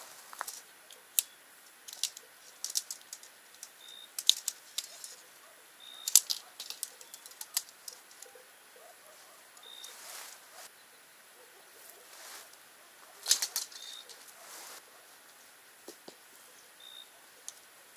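Naturehike Cloud Up 2 tent being pitched by hand: nylon fabric rustling and flapping, with many sharp clicks and taps as the tent and its poles are handled.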